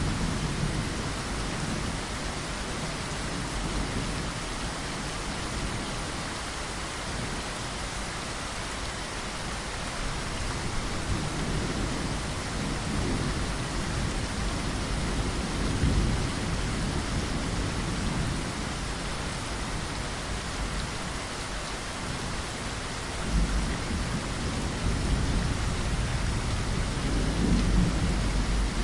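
Steady heavy rain falling and pattering against a window, with low rolls of thunder about halfway through and again in the last few seconds.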